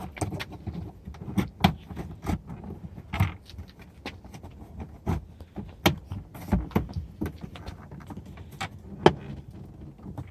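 Plastic trim clips of a 2009 Jeep Wrangler door panel being pried and popped loose with a pry tool: irregular sharp clicks, snaps and knocks of plastic against the door, the sharpest about nine seconds in. The clips are stubborn.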